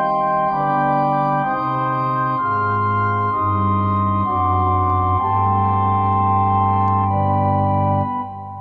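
Organ music playing slow, held chords that change about every second, with a deeper bass line joining about two and a half seconds in; it dips briefly near the end.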